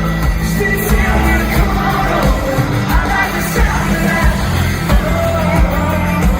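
Live country-pop band playing in an arena, heard from the crowd: a lead vocal sung over heavy bass and drum hits.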